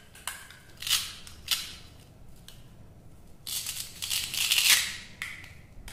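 Halves of a plastic toy fruit handled close up: a few sharp clicks, then a rasping scrape about three and a half seconds in as the halves are worked apart.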